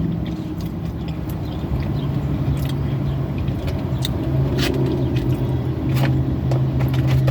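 A car idling, heard from inside the cabin as a steady low hum. Scattered short clicks and crackles come over it.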